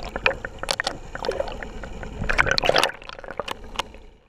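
Water sloshing and gurgling around a camera held underwater, with many irregular clicks and pops.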